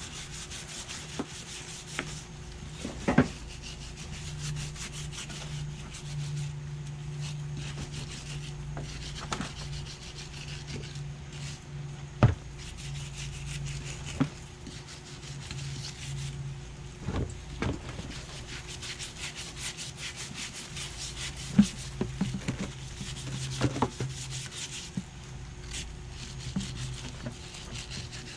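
Wire brush scrubbing caked-on oil off a degreaser-soaked engine oil cooler from a 6.9 diesel, in quick rasping strokes. A few sharp knocks stand out, the loudest about three seconds in, about twelve seconds in and about twenty-one seconds in.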